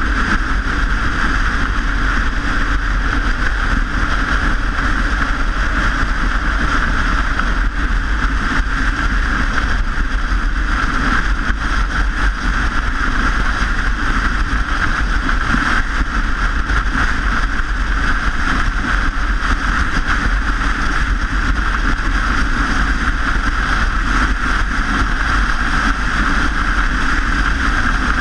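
Steady rushing noise of riding a bicycle: wind on the microphone and road noise, unbroken and even throughout.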